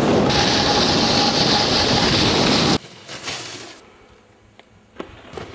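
Loud wind rush on the microphone mixed with the hiss of a snowboard sliding on snow. It cuts off abruptly about three seconds in, leaving a much quieter stretch with a few faint clicks.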